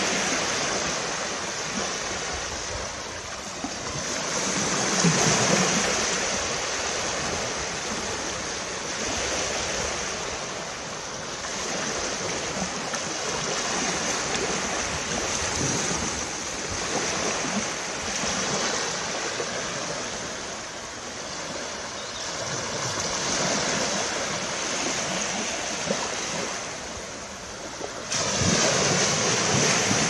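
Small waves washing up on a sandy beach, the surf swelling and ebbing every few seconds and growing louder near the end.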